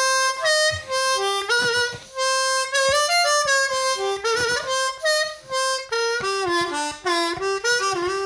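A Seydel 1847 Lightning metal-bodied diatonic harmonica played solo. It runs through a quick melodic phrase of single notes, some of them bent so the pitch slides and wavers, and the phrase dies away right at the end. Its fourth-channel reed has just been regapped by a slight bend.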